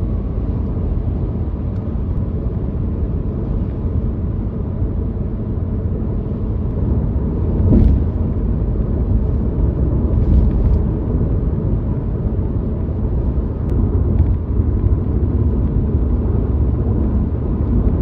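A car driving on the highway: steady low road and engine rumble, with a brief thump about eight seconds in.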